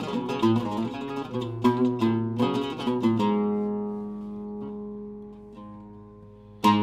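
Oud with a Canadian cedar top played solo with a plectrum: a run of quick plucked notes, then a low note left to ring and die away for about three seconds, and a sharp new stroke near the end as playing resumes.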